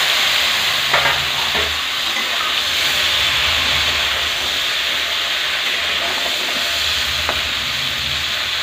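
Stuffed okra frying in hot mustard oil in a steel kadhai, a steady sizzling hiss. A steel spatula knocks against the pan a few times as the pieces are spread out and turned.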